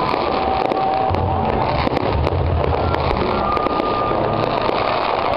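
Fireworks crackling and popping in a dense, continuous barrage of sharp cracks, with music with a pulsing bass playing loudly underneath.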